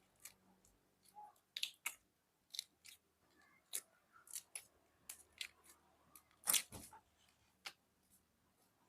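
A series of short, crisp snaps and clicks, about fifteen of them at irregular spacing, the loudest about six and a half seconds in.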